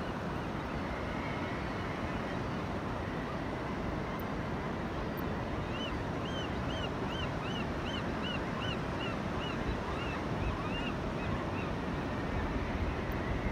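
Ocean surf, a steady rush of waves washing across the flat wet sand at low tide, with wind on the microphone. From about six seconds in comes a run of about a dozen short high chirps, about two a second.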